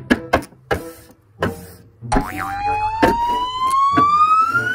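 A few quick taps, then, about two seconds in, a sound effect of a single whine that rises steadily in pitch for about three seconds.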